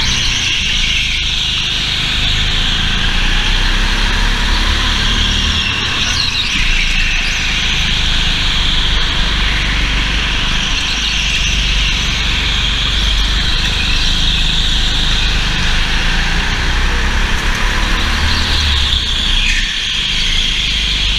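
A racing kart's engine running hard as it laps, heard onboard, with a steady rush of noise over it. Brief tyre squeals come in the corners, about six seconds in and again near the end.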